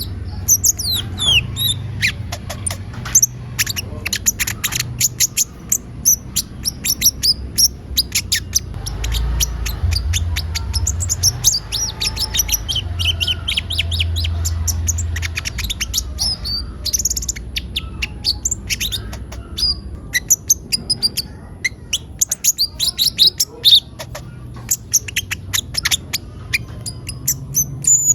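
Olive-backed sunbird (konin) singing energetically: a fast, unbroken run of sharp high chirps and quick trills, used as a lure song to provoke other birds to answer. A low rumble sits underneath, strongest in the middle.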